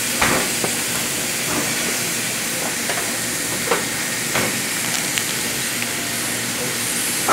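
Chicken strips, sliced onion and tomato frying in a little oil in a pan: a steady sizzle with scattered small pops.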